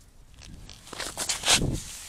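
Footsteps crunching in snow on a frozen lake: a few quick steps, loudest in the second half.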